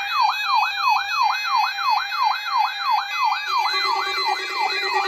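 Electronic warning siren yelping, its pitch sweeping up and down about twice a second, sounded as a weather radio's weekly warning alarm test. About three and a half seconds in, a steady lower tone joins it.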